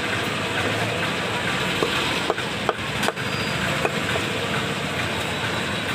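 A butcher's knife knocking on a wooden chopping block while cutting lamb intestines, about six sharp irregular knocks, over a steady background hum of street noise.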